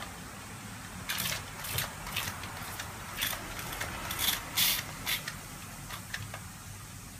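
Bath ball fizzing in a glass bowl of water, a steady faint hiss, with about eight short, sharp hissing bursts between one and five seconds in from a toy pump-action water gun held over the bowl.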